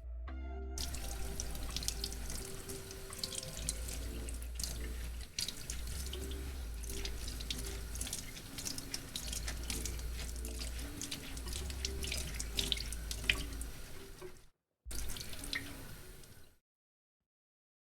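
Water running from a tap into a sink, with irregular splashing and spattering. It stops abruptly near the end.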